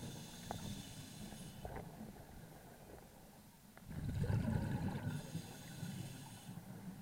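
Scuba diver breathing through a regulator underwater. A hissing breath through the regulator at the start, a rumbling burst of exhaled bubbles about four seconds in, then another hissing breath, with a few faint ticks between.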